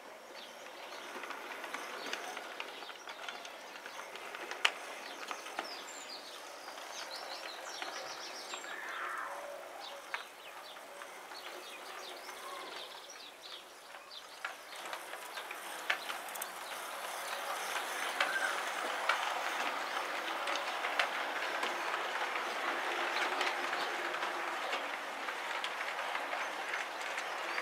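Model train running along the track, its wheels clicking and rattling over the rail joints, growing louder about two-thirds of the way in.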